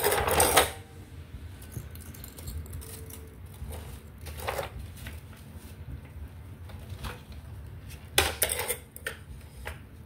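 Short clattering and scraping of hard toys being handled during a child's sand play, in three bursts: at the start, about halfway, and a bit after eight seconds in. The first and last bursts are the loudest.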